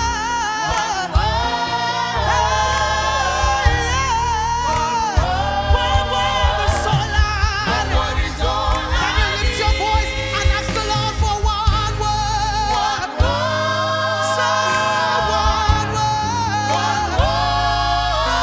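Live gospel praise-and-worship music: voices singing over a band with a steady bass and drums.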